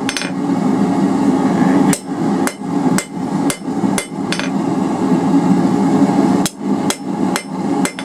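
Blacksmith's hammer striking hot 3/8-inch round bar on an anvil with light straightening and cleanup blows. There are about five sharp strikes, roughly two a second, then a pause and three more near the end, over a steady low roar.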